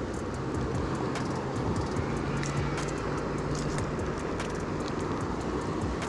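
Steady rush of a mountain river, a low, even noise with many light, quick ticks over it.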